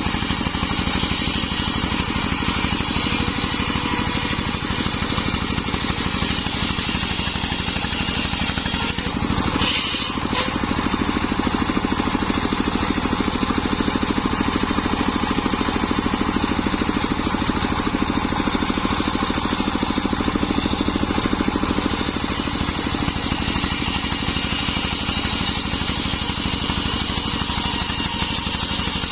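Engine of a homemade circular saw rig running steadily at speed, with a brief change in its sound about nine seconds in and another shift around twenty-two seconds in.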